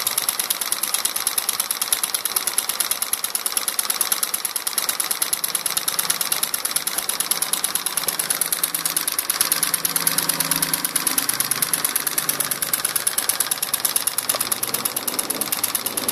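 Homemade drink-can Stirling engine running on a small flame, its crank and linkage giving a rapid, even mechanical clatter as the flywheel spins.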